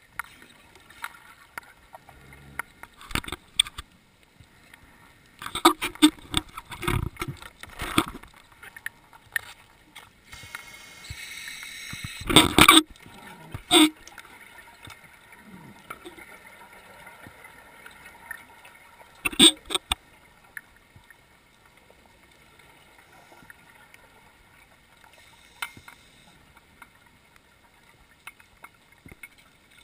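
Scuba divers' exhaled air bubbling out underwater in irregular bursts a few seconds apart, with a brief steady hiss just before the loudest burst about twelve seconds in.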